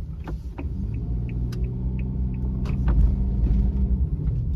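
Suzuki Every kei van driving, heard from inside the cabin: a steady low rumble of engine and road, with a steady engine hum from about a second in, and scattered sharp clicks and rattles.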